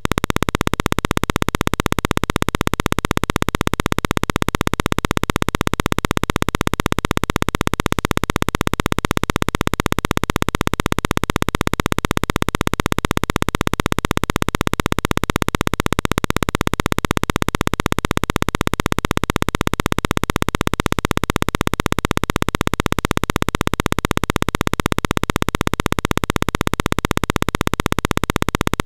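A loud, steady buzz with a rapid, even pulse that does not change at all.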